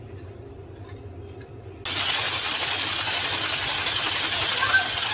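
An electric mixer switched on about two seconds in, then running steadily as it beats sugar into whipped eggs.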